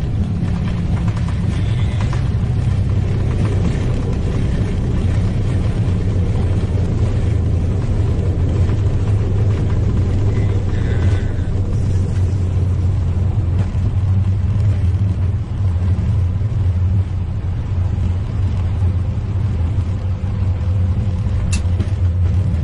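Steady loud rumble heard in the cockpit of a small jet during its landing roll on the runway: the engines and the wheels on the pavement. A brief high chirp comes near the end.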